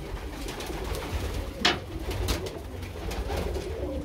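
A loft full of domestic pigeons cooing together, a steady low murmur of overlapping calls, with one short sharp noise about one and a half seconds in.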